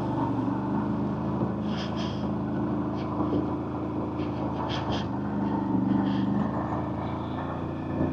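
CFMoto CForce 1000 ATV's V-twin engine running at a low, steady throttle while the machine creeps over a rocky trail, with a few brief rattles on top.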